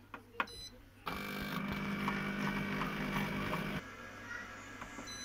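Compact Cook Elite multicooker: a knob press with a short beep, then its motor runs steadily for under three seconds, turning the four-blade knife through flour, butter and water for shortcrust pastry on program 24, and stops suddenly. A second short beep near the end.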